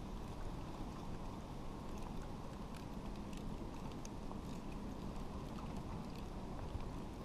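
Steady low rumble of wind on the camera microphone, with faint scattered ticks and rustles as a tarp line is tied off around a tree trunk.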